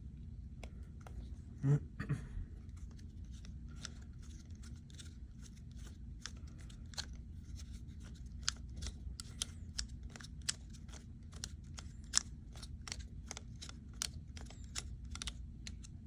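Small metal clicks and scrapes of a T25 Torx driver turning a set screw back into a padlock body, locking the new shackle in place, with one louder knock about two seconds in.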